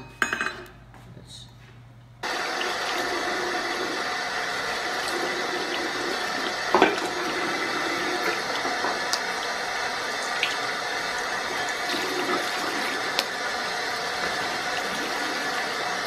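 A few faint clinks, then about two seconds in a bathroom tap starts running in a steady stream into a ceramic sink, with small splashes as a parrot bathes under the water. The sharpest splash comes about seven seconds in.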